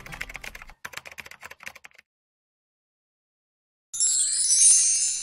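Keyboard-typing sound effect, a quick run of key clicks for about two seconds as the logo's letters type out. After a short silence comes a bright, high hissing sound effect lasting about a second and a half, the loudest part.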